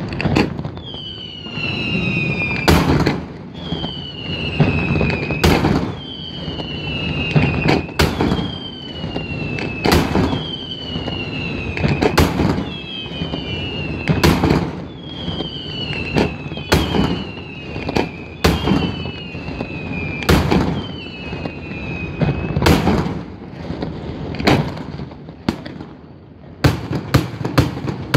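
Daytime fireworks shells bursting with sharp bangs about every two to three seconds, with a falling whistle between the bangs. A quick cluster of bangs comes near the end.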